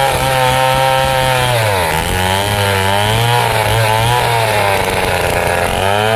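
Stihl two-stroke chainsaw running at high revs while ripping lengthwise through a large teak log. The engine pitch sags under load about two seconds in, recovers, and dips again near the end.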